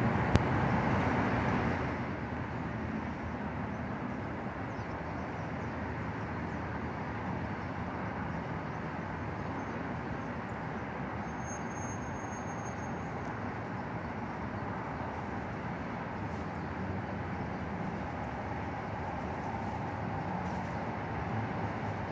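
Steady drone of freeway traffic overhead, with one sharp click just after the start. Near the end the sound swells slightly as a light-rail train begins to approach along the elevated track.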